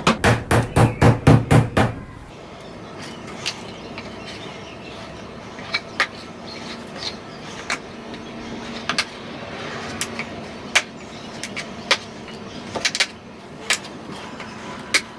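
A quick run of loud hammer taps on a metal tool for the first two seconds, then a metal pry tool worked under an old plywood panel, with faint scraping and scattered sharp clicks and cracks as the wood and fasteners give.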